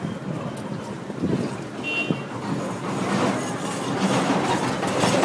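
Street traffic: a motor vehicle going by, getting louder over the last couple of seconds, with a brief high tone about two seconds in.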